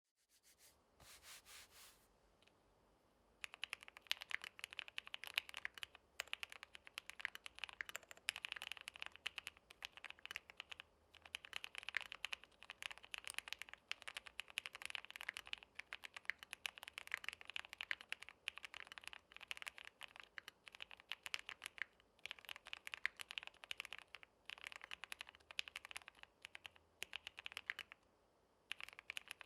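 Fast typing on the Phase One prototype, a gasket-mounted mechanical keyboard with lubed Gateron Silver Blizzard V2 switches, an aluminium half plate and doubleshot PBT/ABS keycaps. The keystrokes come as rapid clacks in long runs, starting about three seconds in after a brief faint sound, with short pauses between runs.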